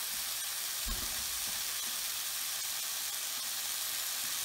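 Sliced mushrooms sautéing in butter in a nonstick skillet: a steady, high sizzle.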